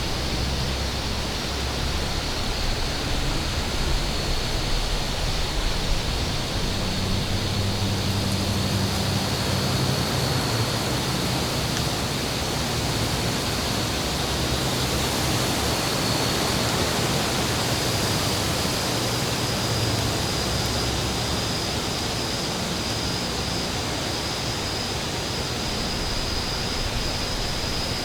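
Steady rushing wind, a continuous even hiss with low rumbling swells that rise and fall through the middle. A thin steady high tone runs underneath.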